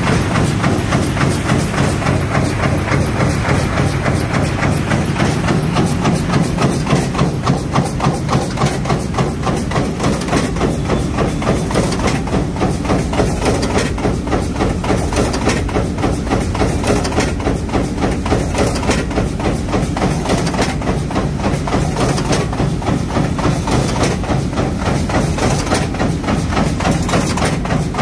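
2006 Burr Oak FP3 100-ton fin press line running: a rapid, even clatter of press strokes, several a second, over a steady low machine hum.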